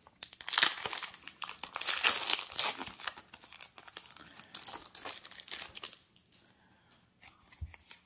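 Foil Yu-Gi-Oh! booster pack wrapper being torn open and crinkled by hand, a dense crackling rustle that dies down about six seconds in.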